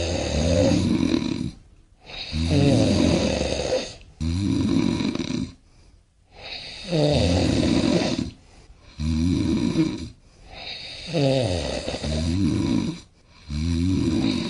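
A person snoring: a long snore roughly every two seconds, with short quiet gaps between breaths.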